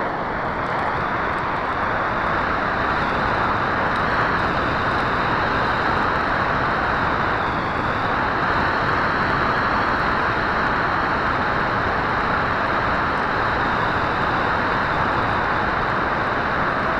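Steady rush of airflow over the onboard camera of a Bixler 2 RC foam plane in flight, with a faint high whine running under it that dips slightly about halfway through.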